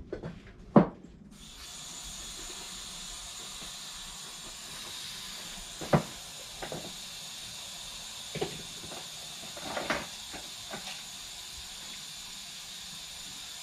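Air hissing steadily out of a truck tire's valve stem through a held-on air-relief valve tool, deflating the tire. A sharp click about a second in, just before the hiss starts, and a few light knocks over it.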